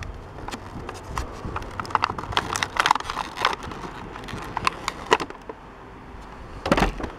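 Clear plastic blister tray crackling and clicking as it is handled and pried open, a string of irregular small clicks with a louder crackle near the end.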